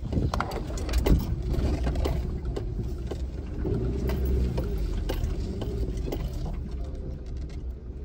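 Low, steady rumble of a car driving along a rural road, with a few brief knocks and rattles.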